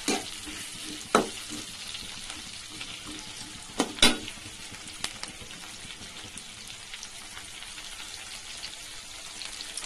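Sliced onions sizzling in hot oil in a steel kadai, with a steel spatula scraping and knocking against the pan a few times; the sharpest knock comes about four seconds in.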